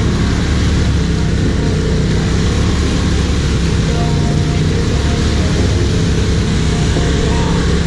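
ATV engines running at a steady idle, a low even drone that does not rise or fall.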